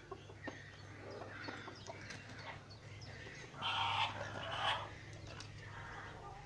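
Hens in a nest box clucking softly in short, scattered calls, with two louder calls about halfway through.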